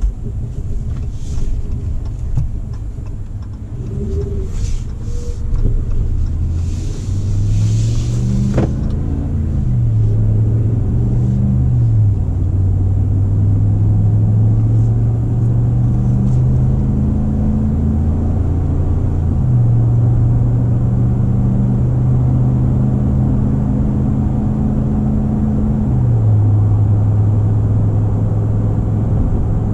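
The 5.7-litre HEMI V8 of a 2019 Ram 1500 pulls away under load with a 5,200 lb travel trailer in tow, heard from inside the cab. The engine note climbs and drops back three times as the automatic shifts up through the gears, over a steady rumble of road noise.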